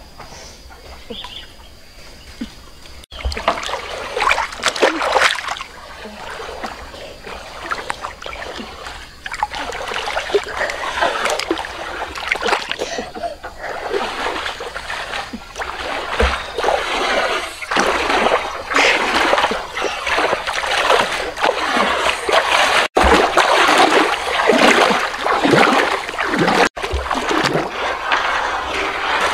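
River water splashing and sloshing as a person paddles and pushes through it in a large round metal basin, stroke after stroke. Fainter for the first three seconds, then steady splashing.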